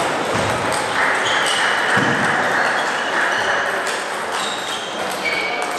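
Table tennis rally: the celluloid ball clicking off bats and the table over steady hall noise, with several brief high squeaks.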